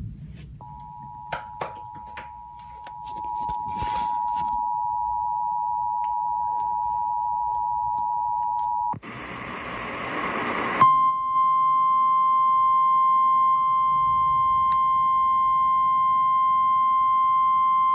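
Emergency Alert System attention signal announcing a severe thunderstorm warning. The steady two-tone EAS alert sounds first, is cut off about nine seconds in by a burst of static, and then the single-pitch 1050 Hz NOAA Weather Radio alert tone follows.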